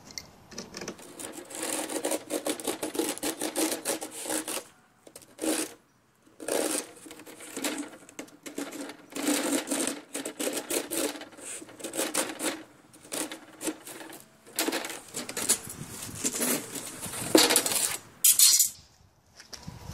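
Utility knife blade scoring a USG Durock cement board, scraping along the cut line in repeated passes with brief pauses between them.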